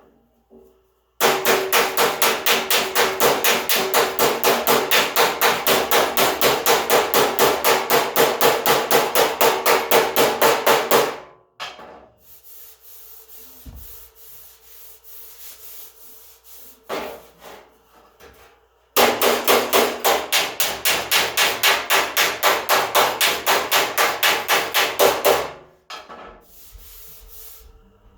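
Hammer tapping rapidly on the sheet-steel front fender of a 1978 Ford F100, about four blows a second, in two long runs with a pause between, to work out small dents. A steady ringing tone from the panel sounds under the blows.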